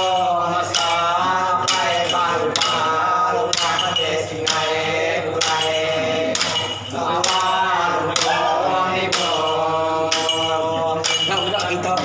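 Male voices singing a slow, drawn-out Iban ritual chant led by a lemambang (bard). A rhythmic jingling stroke beats under it about once a second, from the ritual staffs they carry.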